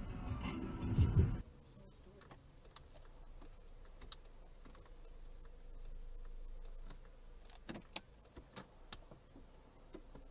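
Background music cuts off about a second in. After it, a quiet car cabin with a low steady hum and a scatter of faint, irregular clicks and ticks.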